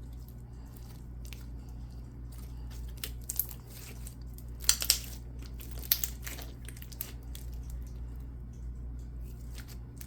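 Hands stretching and squeezing a large batch of tacky clear slime, making scattered small clicks, crackles and sticky pops, with a few louder pops around the middle.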